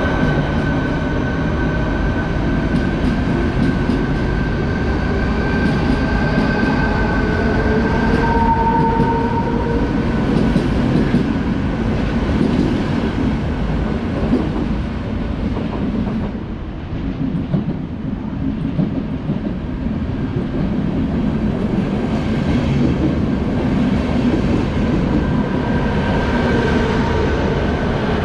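Train running along the track, its wheels clattering over rail joints under a steady high whine. The sound eases briefly about sixteen seconds in, then builds again.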